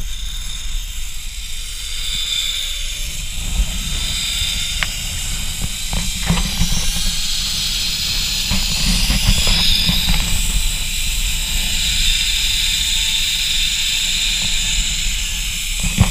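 Zip line trolley pulleys running along the steel cable with a steady high hiss and whir that swells toward the middle, over wind rumbling on the microphone.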